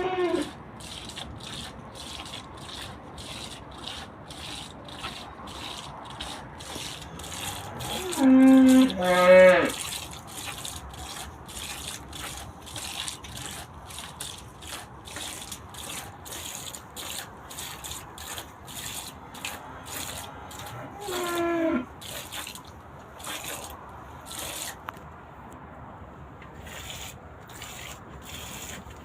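A cow being milked by hand into a pail: squirts of milk hitting the pail in a steady rhythm, a little under two strokes a second. Twice a louder, falling call sounds over it, about a third of the way in and again about two-thirds through.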